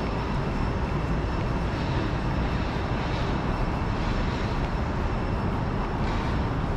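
Steady city street din: a low rumble of distant traffic and machinery, with a faint steady high whine over it.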